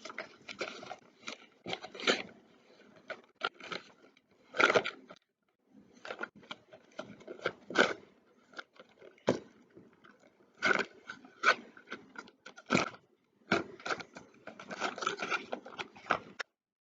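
Crayon scraping on paper in quick, uneven back-and-forth strokes while coloring in a small worksheet picture.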